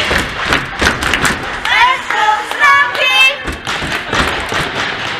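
A group of children's voices shouting a rhythmic chant, with thumps and clapping mixed in; the chant fades away near the end.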